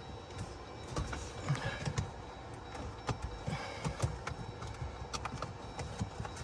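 Scattered light clicks and knocks of hands handling small parts and tools, over a low steady hum.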